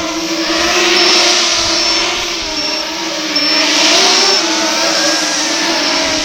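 FPV drone's motors and propellers whining steadily, the pitch drifting up and down with the throttle.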